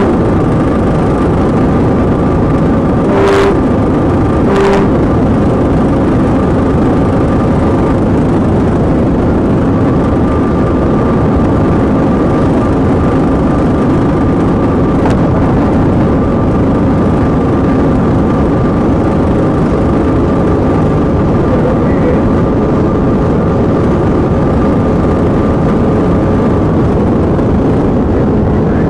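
Loud, steady engine, wind and tyre noise inside a police patrol car driving at about 134 mph, with several steady droning tones. Two short beeps come about three and five seconds in.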